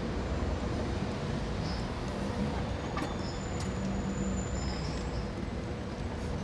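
City street traffic: a steady low rumble of passing vehicles, with faint short high chirps and one sharp click about three seconds in.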